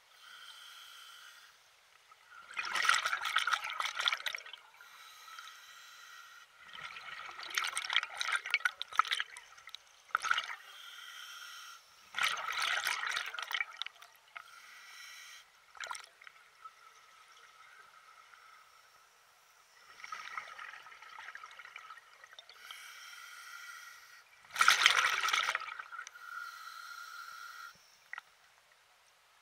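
Water splashing and trickling in about five separate bursts, each a second or two long, with quieter stretches between them.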